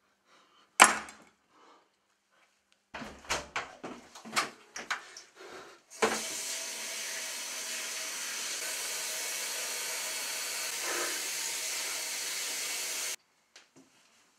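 Water running from a tap into a bathroom sink, a steady hiss for about seven seconds that cuts off suddenly. Before it, a sharp knock about a second in, then a run of knocks and clatter.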